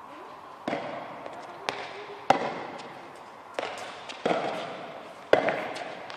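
A tennis ball being hit back and forth with children's rackets and bouncing on an indoor court: about six sharp knocks at irregular intervals of roughly a second, with a few lighter taps between them, each knock echoing in the large hall.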